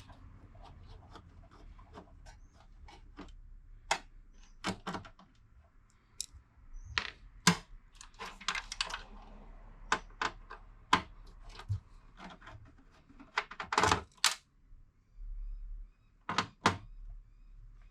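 Irregular clicks, taps and knocks of screws, a screwdriver and parts being handled in a desktop PC's case while the main board is taken out, with several sharper knocks among them.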